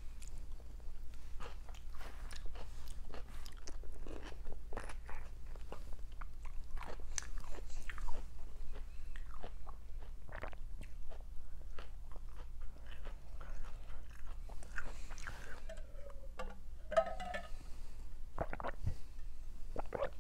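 A person chewing food close to the microphone: many small, irregular mouth clicks and bites. A short pitched sound comes about three-quarters of the way through.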